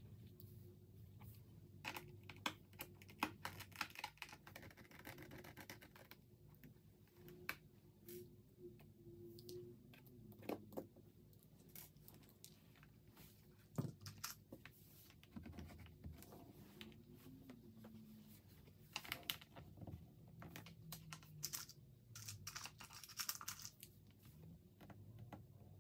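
Quiet, scattered clicks, taps and scrapes of a precision screwdriver and a plastic pry tool working on a laptop's plastic bottom cover, removing its screws and unclipping the back panel, over a faint low hum.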